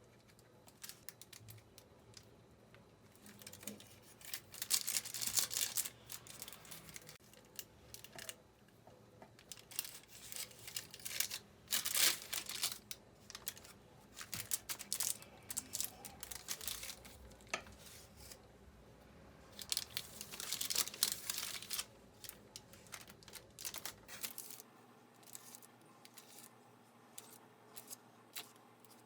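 Paper or plastic packaging being crinkled and torn in repeated bursts of rustling, with pauses between them.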